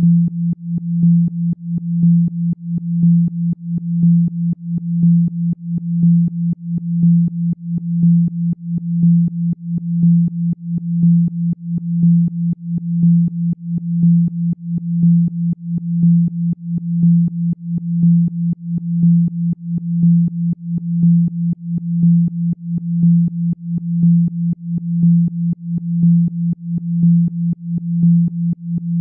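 A single low electronic tone, a little under 200 Hz, pulsing in loudness about once a second: a Rife frequency played for sound healing.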